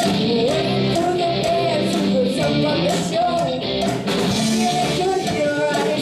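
Young rock band playing live: electric guitars, bass guitar, drum kit and cowbell keep a steady beat under a girl singing the lead vocal.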